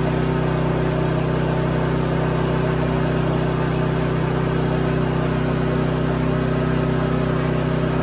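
Champion dual-fuel portable generator's small engine running steadily on propane, at an even speed with a constant drone. It now starts and keeps running on propane because its faulty propane regulator has been replaced.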